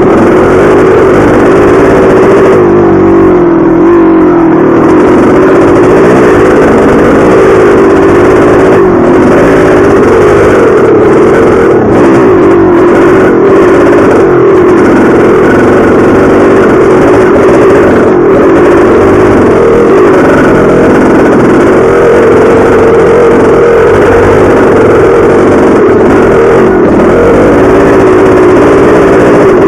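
1983 Maico 490's two-stroke single-cylinder engine running loud and continuous while the dirt bike is ridden on a trail, its pitch wavering up and down as the throttle is worked.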